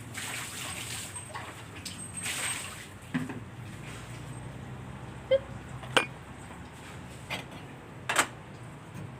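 Water splashing in a kitchen bowl for about three seconds as ingredients are washed, then three sharp clinks of dishware or a utensil.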